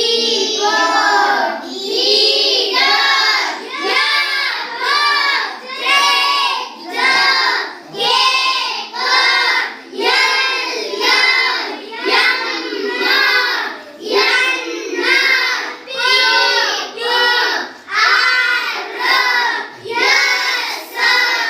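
A class of children reciting aloud in unison, chanting English letters and their sounds in a steady sing-song rhythm.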